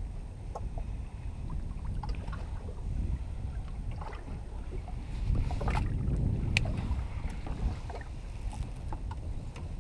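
Low, steady wind rumble on the microphone and water sloshing around a small drifting boat, with scattered small clicks and knocks of fishing tackle being handled, one sharper click about six and a half seconds in.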